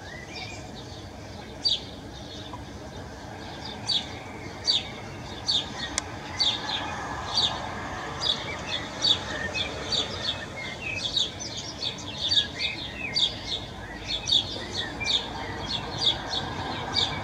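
Egyptian goose gosling peeping: short high peeps that come more often as it goes on, about two or three a second.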